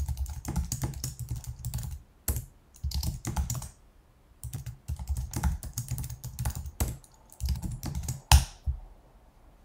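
Typing on a computer keyboard: quick runs of key clicks in a few bursts with short pauses between them, and one harder key press near the end.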